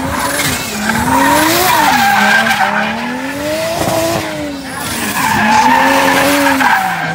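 Nissan Silvia S14 drift car with a 1JZ straight-six swap, its engine revving up and down through a drift, rising and falling in pitch about three times, with tires skidding and squealing on concrete.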